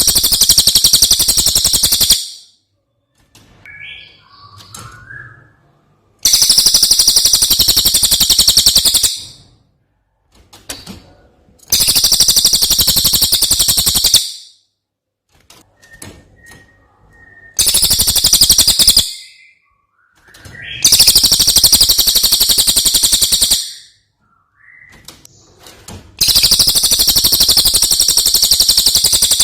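Brown cililin singing: six loud, rapid, high-pitched trilling phrases of two to three seconds each, coming about every five or six seconds, with faint short chirps between them.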